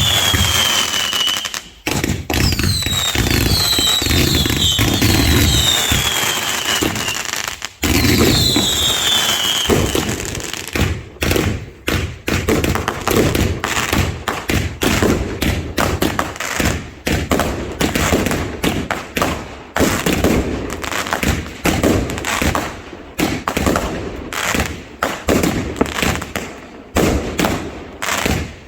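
Fireworks going off: several falling whistles over dense bangs and crackle for the first ten seconds or so, then a rapid run of sharp bangs and crackles.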